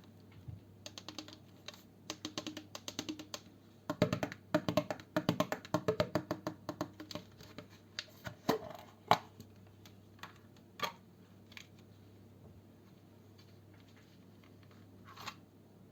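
Slime being pressed and squeezed by hand. It makes quick clusters of small crackling clicks for about the first nine seconds, densest in the middle, then only a few scattered pops.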